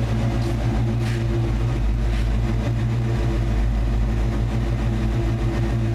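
1992 Ford Mustang 5.0's V8 idling steadily, warmed up and running smoothly.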